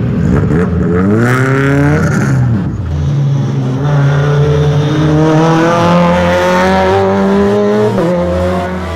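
Rally car engine accelerating hard. It revs up sharply over the first two seconds and drops briefly about two and a half seconds in at a gear change. It then pulls up steadily for several seconds before the revs fall again near the end at the next shift.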